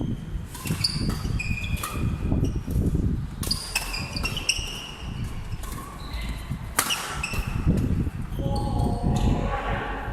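Badminton rally on an indoor court: shoes squeaking on the court floor, with a few sharp racket hits on the shuttlecock.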